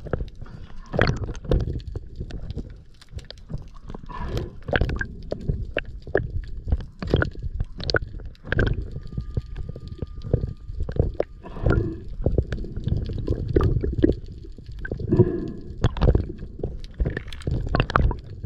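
Water gurgling and rushing around an underwater camera as a freediver dives, in irregular low surges with occasional knocks.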